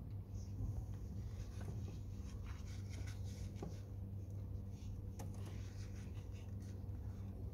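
Rubber-gloved hands turning and rubbing a torch-charred pomegranate: faint scratching and rubbing on the burnt, cracked skin, with a few small ticks, over a steady low hum.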